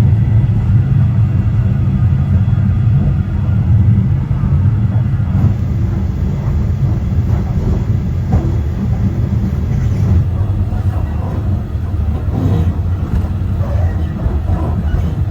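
Passenger train running along the line: a steady, heavy low rumble, with faint scattered knocks and rattles over it.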